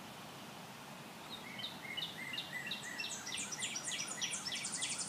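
A songbird singing outdoors over a steady background hiss: a long series of short, clear notes starting about a second in, which speed up, grow louder and rise in pitch as the song goes on.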